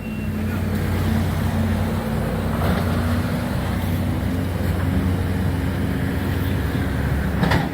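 Heavy diesel machinery, most likely the demolition excavator, running steadily with a low engine hum and a rough rumble, and a sharp knock near the end.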